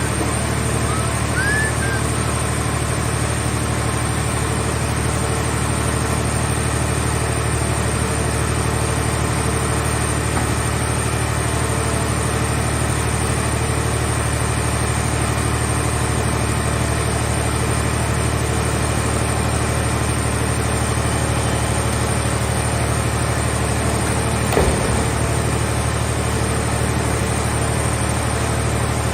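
Heavy engine running steadily at an even speed, with a single short knock near the end.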